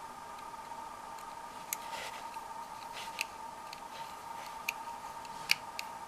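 Light, sharp clicks of small die-cast car parts being handled and fitted together, a few in all and about a second or more apart, the loudest near the end, over a steady hum.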